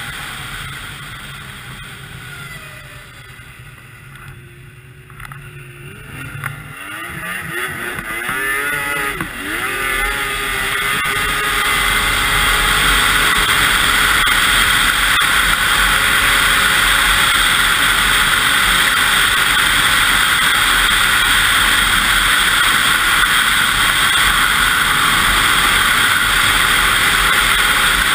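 2002 Yamaha SX Viper 700 snowmobile's three-cylinder two-stroke engine eases off to a quieter, low running for the first few seconds. It then climbs in pitch as the sled accelerates, and from about twelve seconds in it holds a loud, steady run at trail speed.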